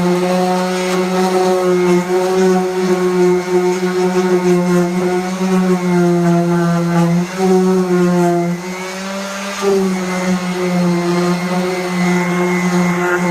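Electric sander running steadily on car body paint, a loud motor hum whose pitch and loudness waver slightly as it is worked against the panel. It dips a little in pitch about seven to nine seconds in.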